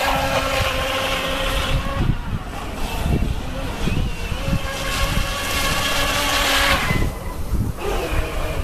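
WLtoys WL915 RC racing boat's brushless electric motor whining as the boat runs at speed, its pitch shifting up and down with the throttle and dropping away near the end. Wind rumbles on the microphone throughout.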